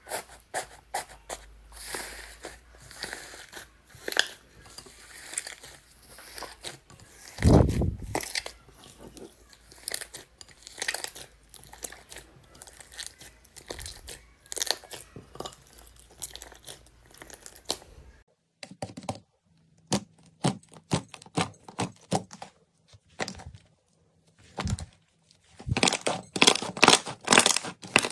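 Slime being squeezed, stretched and pressed by hand: rapid sticky clicks, pops and crackles, with one louder thud about seven seconds in. After a break at about eighteen seconds, the pops come sparser, then build to dense crackling near the end.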